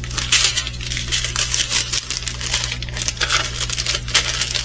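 Rapid small clicks and rattles of resin diamond-painting drills shifting inside small plastic bags as the bags are handled.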